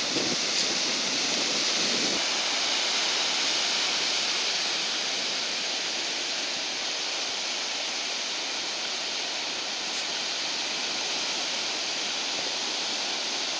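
Ocean surf breaking and washing up a shallow sandy beach: a steady rushing hiss.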